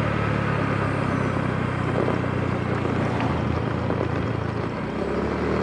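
A small motor scooter's engine runs steadily while riding, under a steady rush of wind and road noise. The sound dips slightly near the end.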